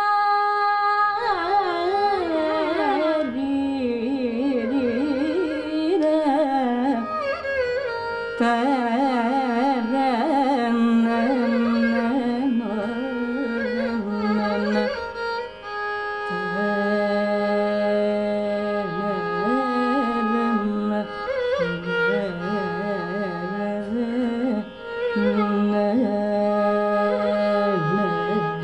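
Carnatic classical singing by a female vocalist, a slow line with wavering ornaments and long held notes, with a violin following her melody over a steady drone.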